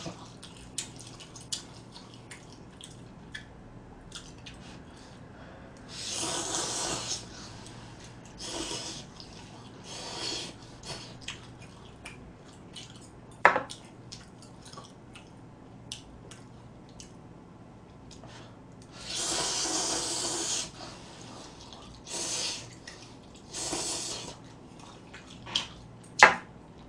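Ramen noodles being slurped in a series of wet slurps, the longest about six seconds in and near twenty seconds in, with small clicks of chopsticks against a metal bowl in between and one sharper click about halfway through.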